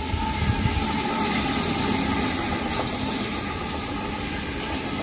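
Sydney Trains double-deck electric suburban train passing close by: a steady rushing hiss of wheels on rail, with a faint whine near the start.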